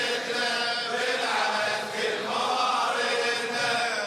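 Male voices chanting a Shia latmiya, a religious lament, in long melodic phrases.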